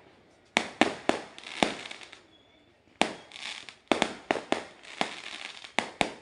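Aerial fireworks bursting overhead: a rapid series of sharp bangs, each with a short crackling tail. The bangs come in two volleys, a short one of four, then a brief lull and a longer, denser run.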